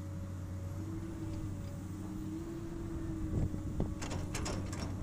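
Komatsu PC200 excavator's diesel engine running steadily, with a hydraulic whine as the loaded bucket swings over the dump truck. From about three seconds in comes a string of sharp knocks and clatters as soil and rocks drop into the truck's steel bed.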